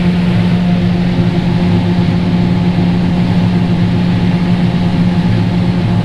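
Combine harvester running while picking corn, heard from inside the cab: a loud, steady drone with a constant low hum.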